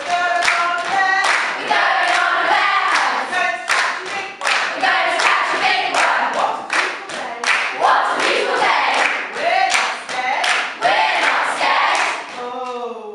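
A large group of women's voices chanting and singing in unison, with repeated hand claps. Near the end the voices slide down in pitch.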